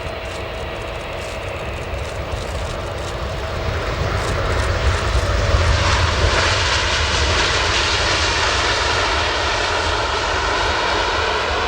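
Boeing 787 Dreamliner jet engines and airflow during a landing, a continuous noise that grows louder about four to six seconds in and then holds steady.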